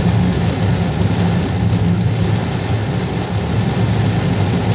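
Car in motion in heavy rain, heard from inside the cabin: a steady low drone of engine and tyres on the wet road, under an even wash of rain on the roof and windscreen.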